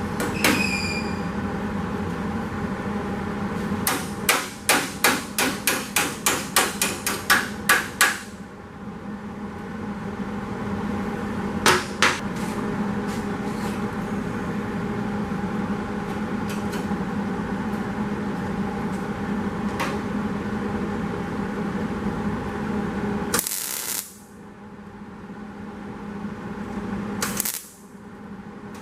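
Hammer blows on the Model A's steel side skirt panel, one run of about a dozen quick strikes and a few single blows, over a steady shop hum. Near the end come three short bursts of hissing noise.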